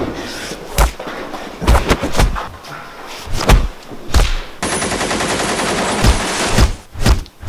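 Gunfire: single shots every half second or so, then a rapid stretch of automatic fire about five seconds in that lasts about two seconds, followed by a few more shots.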